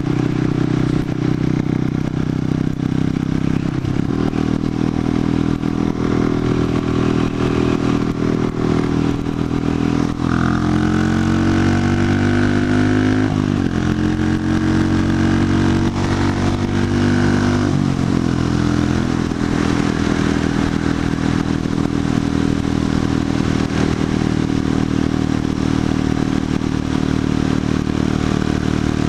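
Buell Blast's single-cylinder engine running while the bike is ridden on the road, with road and wind noise. About a third of the way in, the revs climb and drop twice as the rider accelerates and shifts up.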